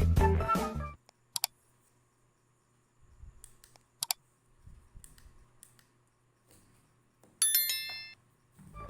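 Background music cuts off, leaving near quiet broken by two sharp clicks and some faint low rumbles; near the end a short bright chime sounds, then the music starts again.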